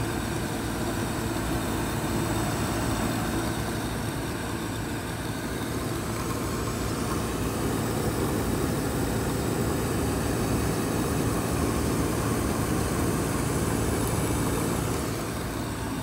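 ICP Comfortmaker two-stage gas furnace running with its burners lit: a steady rushing hum with a low drone. Its two-stage gas valve is judged no good for stage two.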